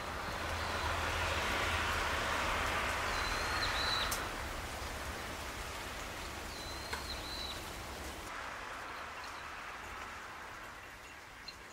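Outdoor ambience: a steady rushing noise, loudest in the first few seconds and then fading, with two short high bird chirps, about three seconds apart.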